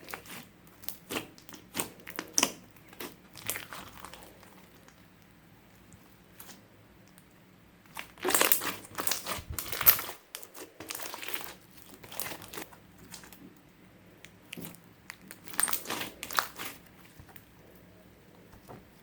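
Clear slime being squeezed and worked by hand, with clusters of wet crackling and popping. The loudest, densest cluster comes about halfway through, with another a few seconds later.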